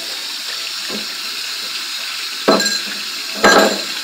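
Metal cookware clanking twice, loud and ringing, about a second apart near the end, over a steady rushing hiss of running water or a fan.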